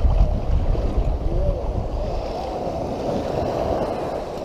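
Shallow seawater sloshing and swirling around a wader's legs, with wind buffeting the microphone, heaviest in the first second and a half.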